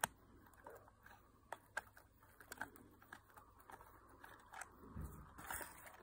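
Faint, scattered small clicks and taps of a small screwdriver working the screw of a model car's plastic display base in a cardboard box, with a soft bump about five seconds in as the box is handled.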